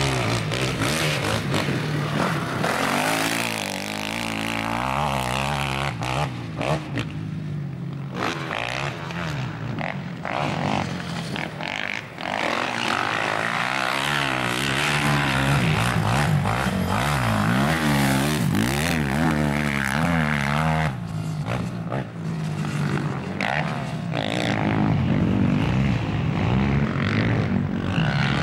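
Racing quad bike engines revving up and down over and over as the quads accelerate out of and brake into dirt-track corners, their pitch rising and falling.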